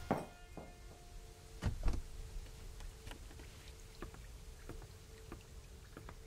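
Water dripping from wet branches after rain: scattered single drops falling irregularly, over a faint steady hum. A heavier low thud comes just under two seconds in.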